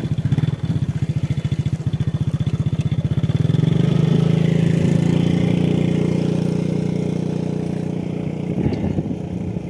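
A small engine running steadily. It gets louder about three and a half seconds in, then slowly fades.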